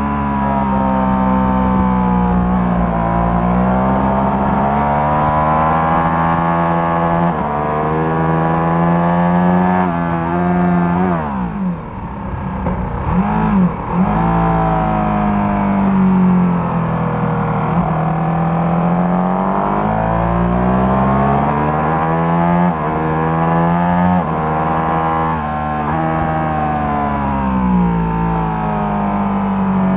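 Ducati 1199 Panigale's Superquadro V-twin through a Termignoni exhaust, heard from on board: the engine revs up hard through the gears, its pitch rising and dropping back at each upshift. About eleven seconds in it backs off, with a few quick throttle blips on the downshifts, then pulls hard again.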